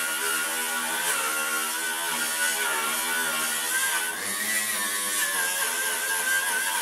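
Angle grinder with a wire brush running against a flat steel sheet, stripping rust: a steady high whine over a harsh hiss, the pitch wavering slightly as the brush works across the metal.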